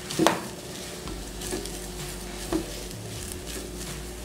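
Diced turkey sausage and onion sizzling in a small saucepan as a silicone spatula stirs them, with three short knocks of the spatula against the pan.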